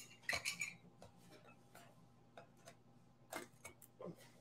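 Handheld can opener working on metal cans as their lids come off: a string of faint, irregular small clicks and ticks.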